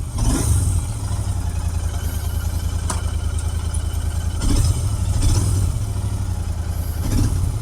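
Royal Enfield Interceptor 650's parallel-twin engine running steadily with a misfire, which the owner blames on water that got into a spark plug during a wash.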